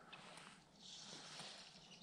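Near silence: faint outdoor ambience with a soft hiss that swells briefly in the middle.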